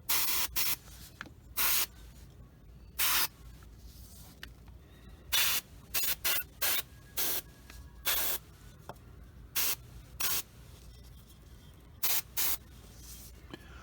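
Airbrush spraying paint in short trigger bursts: about fifteen brief hisses of air at irregular intervals, each lasting a fraction of a second.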